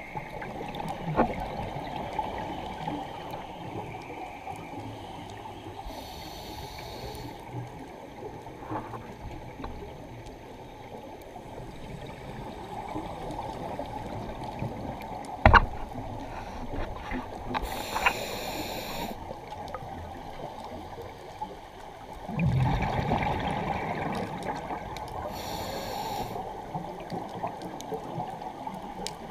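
Muffled underwater sound through a dive camera housing, with a scuba regulator breathing: a hiss about every ten seconds and a stretch of rumbling exhaled bubbles. A single sharp knock about halfway through is the loudest sound.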